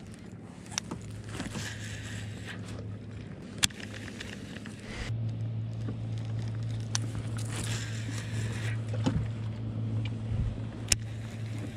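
Steady low hum of a motorboat engine, growing louder about five seconds in, with a few sharp clicks.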